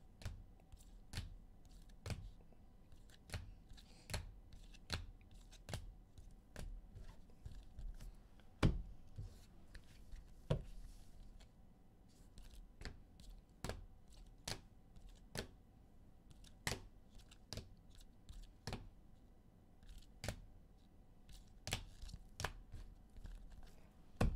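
Trading cards being handled and set down on a tabletop: a quiet, irregular string of light taps and clicks, roughly one a second, with a louder knock about nine seconds in.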